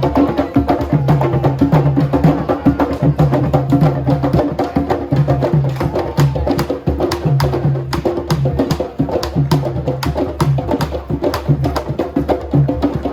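Music with a steady beat: a repeating bass line under fast, crisp percussion hits.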